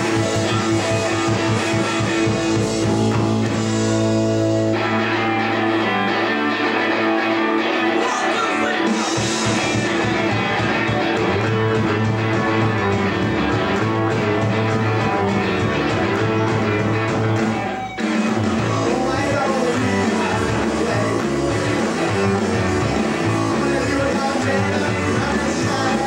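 Live rock band in the British beat style playing: electric guitar, bass guitar and drums, with a male singer. The band breaks off for an instant about two-thirds of the way through and comes straight back in.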